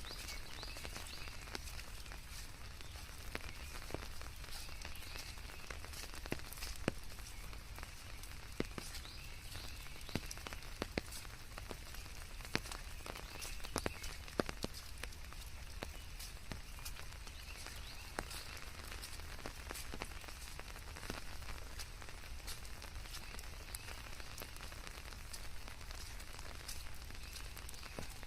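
Steady rainfall mixed with white noise: an even hiss with many scattered drop ticks, some sharper than others, and a steady low rumble beneath.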